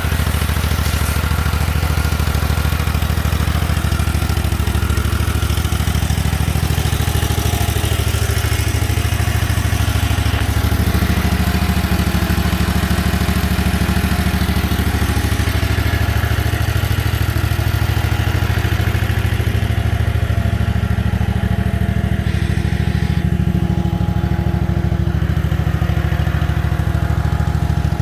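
Engine of a 2003 Lay-Mor LB-30 backhoe running steadily at a constant speed.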